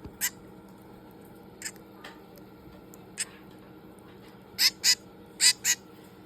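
Hand-reared baby finch, 22 days old, giving short, high, sharp chirps, the begging calls of a chick being hand-fed. A few single chirps come first, then two quick pairs near the end, which are the loudest.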